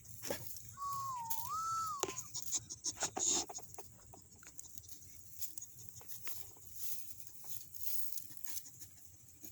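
A dog scuffling at a beetle on the ground: scattered light clicks and rustles, busiest in the first few seconds. About a second in, a single thin, wavering whistle-like tone lasts just over a second.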